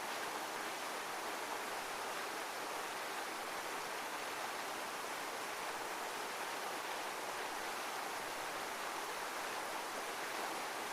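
Continuous rushing water, a steady even hiss with no rise and fall of breaking waves.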